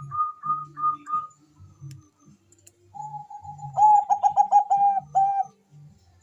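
Zebra dove (Bangkok-type perkutut) cooing: a quick run of short notes in the first second. After a pause comes a louder, rapid trill of repeated notes about four to five seconds in.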